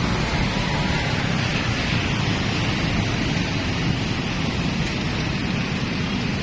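Steady wind and road noise from riding in a moving vehicle in town traffic, with no single sound standing out.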